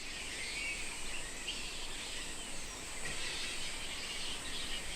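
Tropical outdoor ambience: a steady high insect hum with scattered short chirps of birds or other animals.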